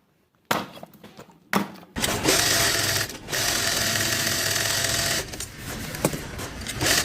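Two knocks, then a small power tool running steadily in two bursts with a short pause between them.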